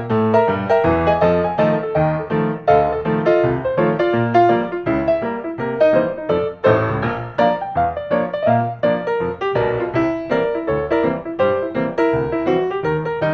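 Background piano music: a steady stream of quick notes over a low bass line.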